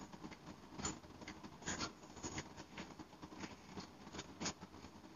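Faint rustling of clothes being handled and pulled from a packed cabinet, with scattered light clicks and knocks.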